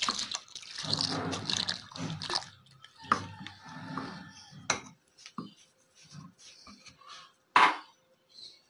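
Thin custard mix poured into a pot of milk, splashing for about two seconds, then a silicone spatula stirring the milk and scraping and tapping against the metal pot, with one sharp knock near the end.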